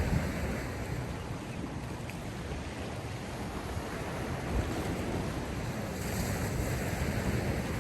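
Sea waves washing in on the shore, a steady rushing wash that swells again near the end, with wind.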